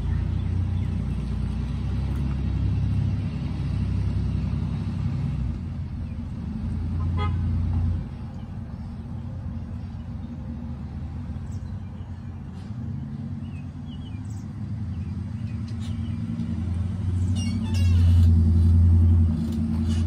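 Low, steady engine rumble, swelling near the end, with a few faint high chirps.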